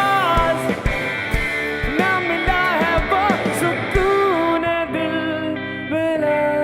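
Live rock band playing: a gliding melody line over a steady kick drum beat about twice a second. The beat stops about four seconds in, leaving held, sustained chords as the song winds down.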